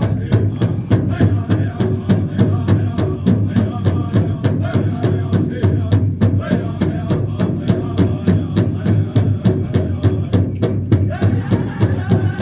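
Powwow drum group playing hoop dance music: a large drum struck in a fast, steady beat, with singers chanting over it.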